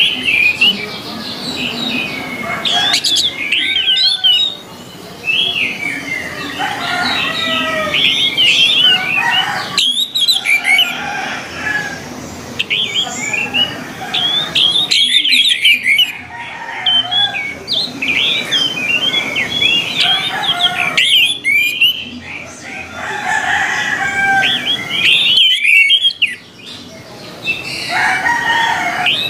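Orange-headed thrushes singing in full voice: rapid, varied runs of chirps, trills and whistles. The song comes in stretches of a few seconds that break off abruptly about every five seconds.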